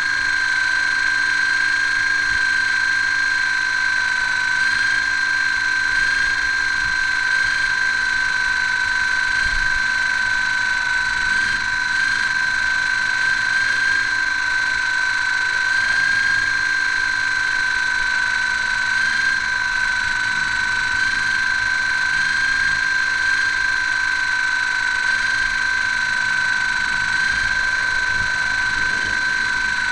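Motor and propeller of a radio-controlled model Hawker Hurricane running steadily at full power, a constant high whine heard from a camera mounted on the model.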